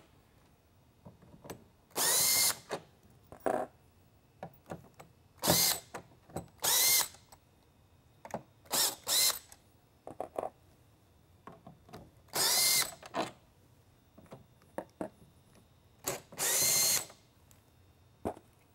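Cordless drill/driver backing screws out of a lightbar's polycarbonate top, running in about six short spurts, each motor whine rising as it spins up. Small clicks of handling and screws fall between the runs.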